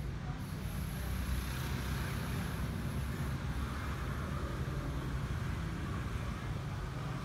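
Steady low rumble of road traffic and street noise in the background.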